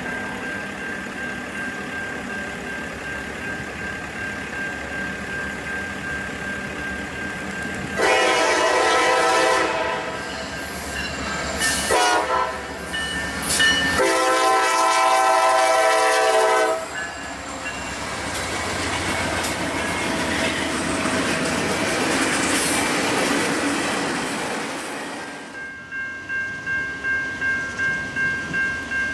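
Norfolk Southern diesel freight locomotives sounding their multi-note air horns in several blasts, with the rushing, clattering noise of passing locomotives and cars between them. Near the end a horn note is held over a quick, regular pulsing at about three a second.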